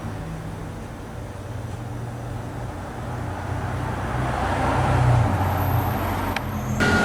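Road traffic: a motor vehicle engine running with a low hum, growing louder about four to five seconds in, with the sound changing abruptly near the end.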